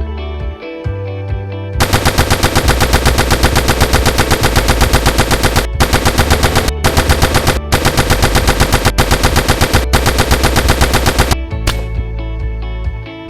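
Machine-gun fire sound effect: rapid shots at about seven a second in several long bursts with short breaks, over guitar background music that plays alone before and after.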